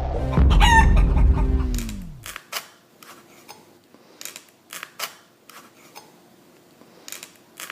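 A low motor hum that winds down in pitch and stops about two seconds in, followed by scattered short clicks and taps.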